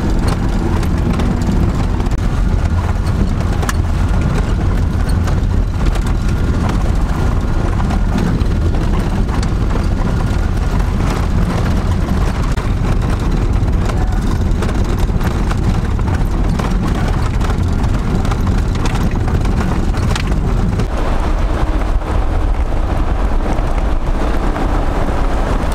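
Camper van driving on a rough, wet dirt track: steady engine and tyre rumble with frequent knocks and rattles from the bumpy road.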